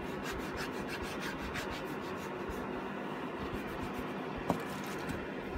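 Small foam applicator pad rubbed in quick repeated strokes over a black plastic Triumph Sprint ST 1050 trim panel, working in trim restorer, over the steady hum of a fan heater. One sharp click about four and a half seconds in.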